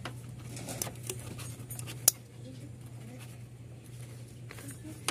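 Small clicks and scrapes of engine parts being handled while a fuel injector is moved from one cylinder to another, with one sharp click about two seconds in, over a steady low hum.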